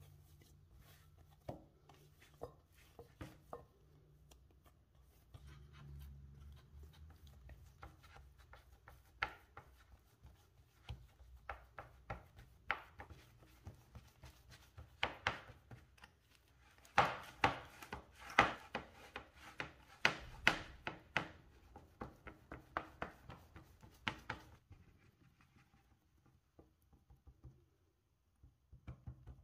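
Hands kneading soft tart dough in a glass bowl, then pressing and patting it into a fluted metal tart tin: soft rubbing and scattered taps, turning into a rapid, louder run of pats in the second half.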